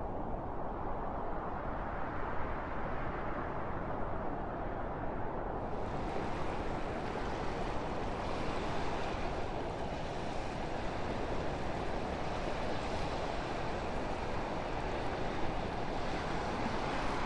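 Wind blowing steadily, an even low rushing noise; about six seconds in it turns brighter and hissier.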